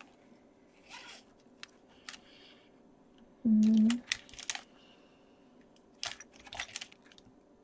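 Scattered small clicks and scratchy rustles of pens and paper being handled on a desk. A little past the middle comes one loud, steady low tone lasting about half a second, which starts and stops abruptly.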